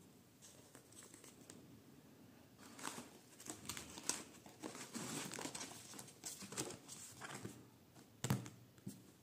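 Paper pages and cut-out paper pieces of a handmade spiral-bound paper book rustling and crinkling as they are flipped over. A single thump near the end as the notebook cover is shut and pressed down.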